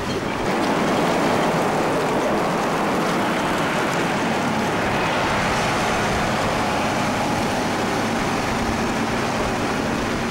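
Road grader's diesel engine running steadily amid wind and rain.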